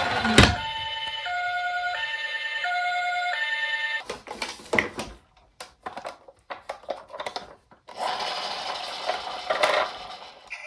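Toy ambulance's electronic two-tone hi-lo siren, alternating between two pitches about every two-thirds of a second for roughly three seconds. Then a string of small plastic clicks and rattles, and a couple of seconds of rushing noise near the end.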